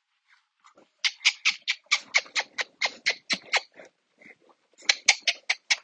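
A small pet animal giving a rapid series of short, high calls, about five a second, starting about a second in. The calls pause briefly, then a second run follows near the end.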